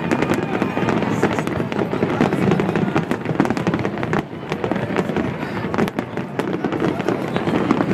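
Aerial fireworks bursting in rapid succession: many sharp reports and crackles close together over a steady low rumble.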